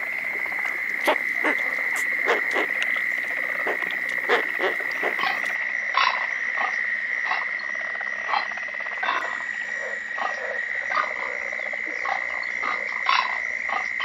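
Wetland frog chorus: a steady high-pitched trill runs throughout, with short croaking calls scattered irregularly over it.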